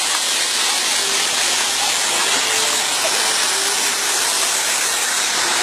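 Stage spark fountains hissing steadily.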